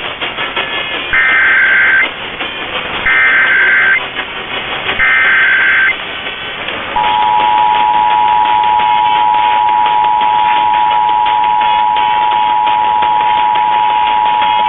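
Emergency Alert System SAME header: three buzzing bursts of digital data tones, about a second each, marking the start of a relayed EAS test alert. About seven seconds in, the steady two-tone EAS attention signal begins and holds. Both are heard through AM radio static.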